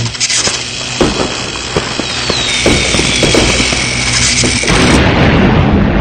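Video intro sound effects over music: a string of booming hits and a high falling swish, fading out near the end.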